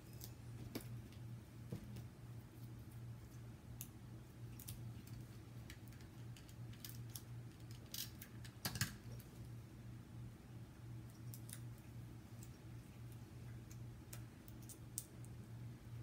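Faint scattered clicks and light paper rustles from small cut paper pieces being handled and pressed onto a card, with a small cluster of louder clicks about nine seconds in, over a steady low hum.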